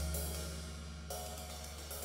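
Jazz bass and drum kit playing: a low bass note rings and slowly fades while cymbals are struck, once at the start and again about a second in.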